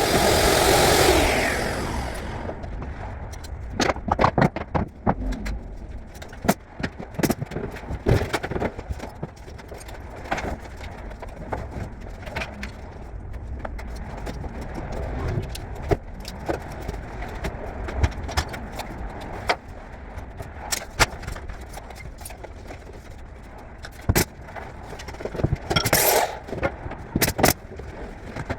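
A power tool's motor winding down with a falling pitch, followed by scattered knocks, taps and clicks of wood and tools being handled during carpentry work, with a brief burst of noise near the end.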